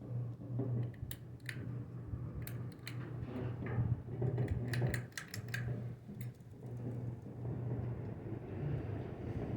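Small 30-inch ceiling fan running with a steady motor hum, with a run of sharp clicks and rattles in the first half. A rushing of air grows from about seven seconds in.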